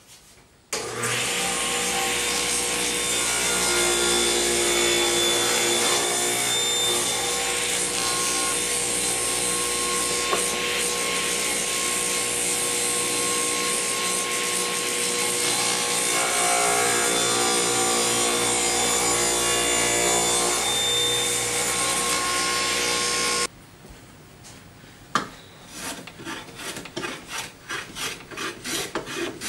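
Table saw running and cutting wood on a crosscut sled; it stops suddenly near the end. Then a hand tool rasps over wood held in a bench vise in quick, even strokes, about two or three a second.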